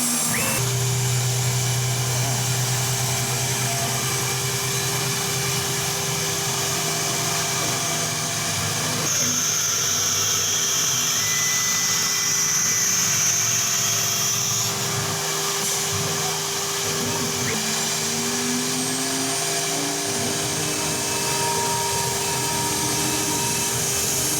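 CNC router running: its spindle and axis drive motors make a steady machine drone with several fixed tones. A high whine comes in about nine seconds in and stops about six seconds later, and motor tones glide up and down briefly as the axes move.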